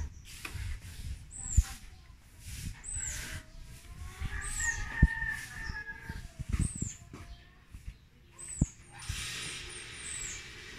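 A rooster crows about four seconds in, over a small bird's short, high, falling chirps repeating about once a second. Low knocks are scattered through, and a hiss rises near the end.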